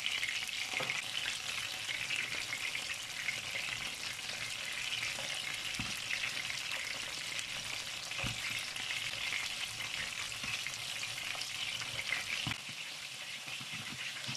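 Ground-meat köfte patties sizzling steadily as they shallow-fry in oil in a grill pan. Three light knocks come through, about six, eight and twelve seconds in.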